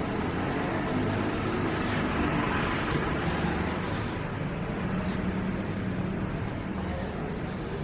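City street traffic noise: motor vehicles running past, with a steady low engine hum, swelling a little a few seconds in.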